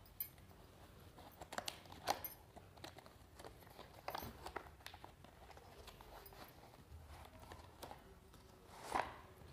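Packaging being handled and opened: irregular crinkles, taps and clicks, with a louder knock about two seconds in and again near the end.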